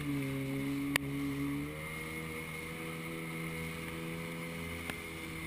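Jet ski engine running steadily under way, its note dropping slightly and getting a little quieter about two seconds in. A sharp tap sounds about a second in, with a fainter one near the end.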